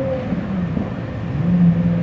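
Ferrari engines running as the cars approach, among them a Testarossa's flat-12 with a Fuchs exhaust and race pipes. The note dips, then rises and gets louder about a second and a half in.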